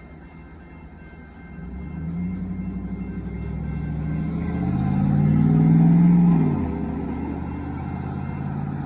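A large road vehicle driving past close by. Its engine note rises in pitch and loudness to a peak about six seconds in, then drops in pitch and fades as it passes.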